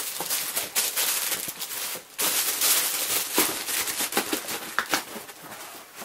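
Tissue paper rustling and crinkling while a trainer is wrapped and packed into a cardboard shoebox, with sharp crackles and knocks as the box is handled.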